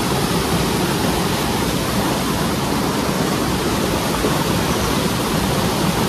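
Mountain stream rushing over and between boulders: a loud, steady rush of water.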